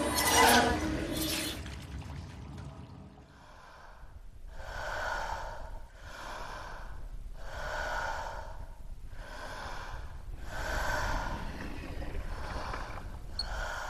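A loud scraping noise in the first two seconds, then a person's heavy, rasping breathing: slow, regular breaths, each about a second long, roughly every one and a half seconds.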